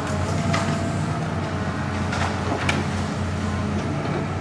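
Hitachi demolition excavator's diesel engine running steadily while it tears down a burned building's wall, with a few sharp cracks and knocks of breaking debris, about half a second in and twice past the middle.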